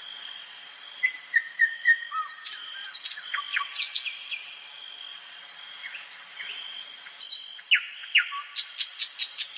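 Several songbirds chirping and singing in quick whistled notes, many sweeping sharply downward, in flurries about a second in and again near the end. A steady thin high tone runs underneath.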